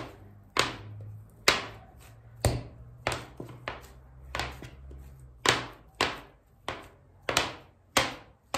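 Metal bench scraper chopping down through soft baklava dough and striking the worktop: a steady series of sharp taps, roughly two a second, as the dough is divided into twelve pieces.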